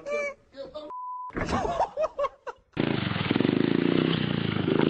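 Brief voices and a short, steady beep, then about three seconds in a small engine starts running steadily with a fast, buzzing pulse.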